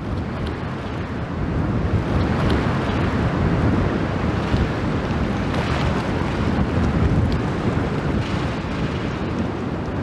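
Strong wind buffeting the microphone, a steady low rumbling noise, over the churning water of a river cruise ship's propeller wash as it manoeuvres close by.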